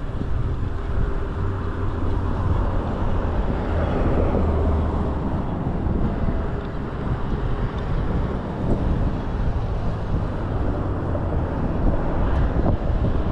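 Steady wind rushing over the microphone during a ride on a folding e-bike, with low rumble from the ride.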